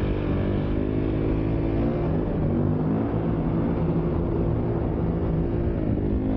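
KTM dirt bike engine running at a steady, held throttle while the bike is up on its back wheel in a wheelie. The pitch wavers only slightly.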